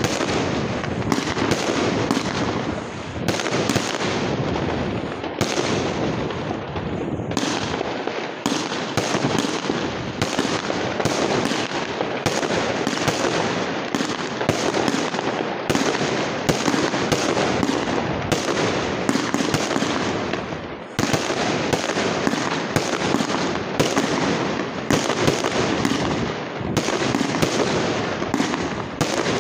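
Aerial fireworks display: shells bursting overhead in a rapid, almost unbroken string of bangs, with only brief let-ups.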